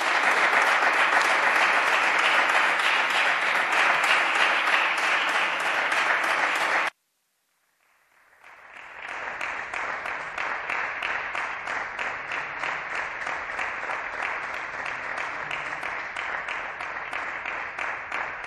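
Applause from a bench of parliamentary deputies, many hands clapping at once. It cuts off abruptly about seven seconds in, then fades back in a second later, quieter, and carries on.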